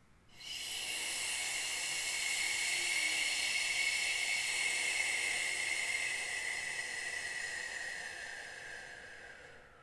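A woman's long 'shhh' exhalation through the mouth, lasting about nine seconds. The hiss slowly falls in pitch and fades near the end. It is the lengthened out-breath of a breathing exercise.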